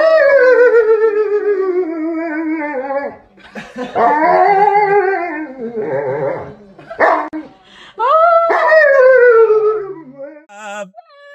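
Dog howling in three long drawn-out calls: the first slides down in pitch, the second rises and falls, and the third swells up then sinks away.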